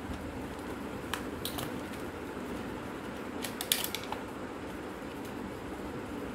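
Plastic clicks and snaps as the casing of an old compact camera is pried apart by hand: a couple of light clicks, then a louder cluster of snaps between three and four seconds in, over a steady low hum.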